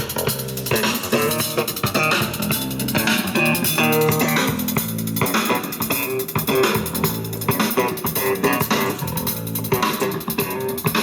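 Music with guitar, bass guitar and drums, playing steadily.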